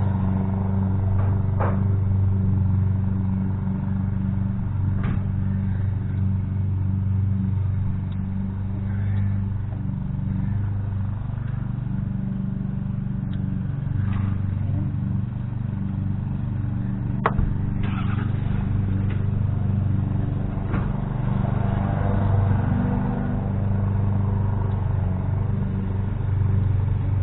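A steady low mechanical hum runs underneath a few sharp metallic clicks and knocks as a stuck EGR valve is worked loose from the intake manifold.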